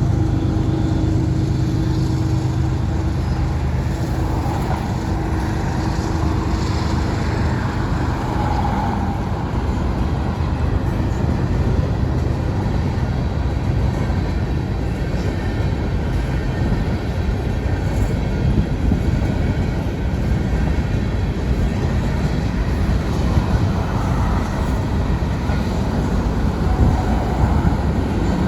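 Union Pacific grain train's freight cars rolling past, a steady rumble and clatter of steel wheels on the rails. A low, steady hum fades out in the first few seconds.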